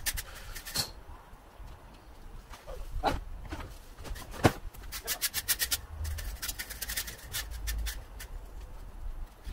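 Garden rake scratching and scraping cuttings and soil over the ground, with the rustle of a plastic garden-waste bag being filled; a couple of sharper clicks in the middle.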